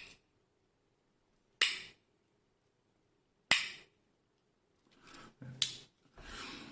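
Victorinox Forester One Hand's locking main blade snapping into place: two sharp metallic clicks about two seconds apart, the lock being shown. Softer rustling and scraping sounds near the end.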